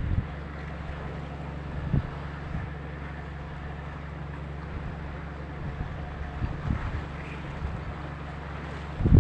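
Steady low drone of a boat engine under way, with gusts of wind buffeting the microphone, the strongest near the end.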